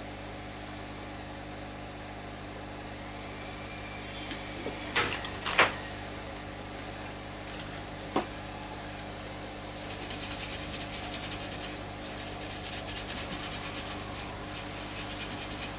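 Steady electrical hum of workbench equipment, with a few sharp clicks midway and, from about ten seconds in, a fast, fine scratching or crackling.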